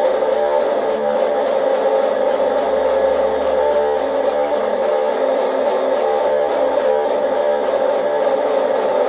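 Electric guitar playing continuously with an even rhythmic pulse of about four to five beats a second.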